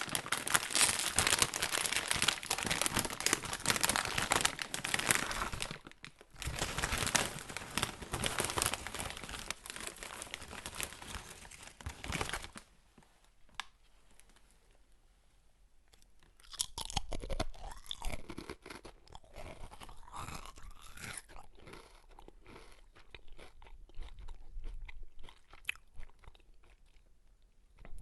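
A person crunching and chewing potato chips close to the mouth: two long stretches of dense crunching in the first half, then softer chewing with scattered crackles.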